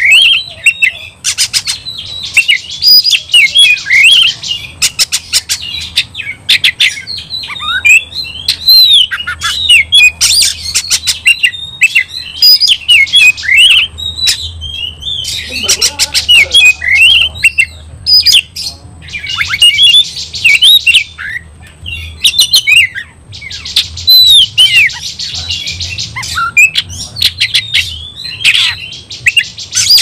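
Oriental magpie-robin singing loudly and without letting up: a varied song of rising and falling whistles mixed with quick runs of sharp clicks and dense chattering, broken only by short pauses.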